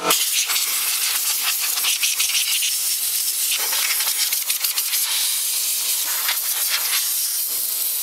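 Compressed air hissing steadily from a blow gun as it blasts dust out of a vintage electric heater's drum fan, the hiss wavering slightly as the nozzle moves.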